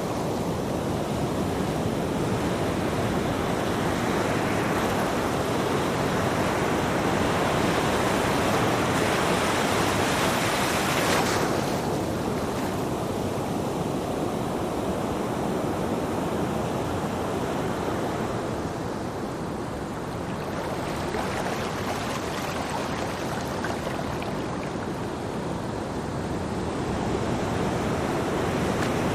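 Ocean surf washing onto a beach: a continuous rush of waves that swells louder in the first third, eases off about two-thirds through and builds again near the end.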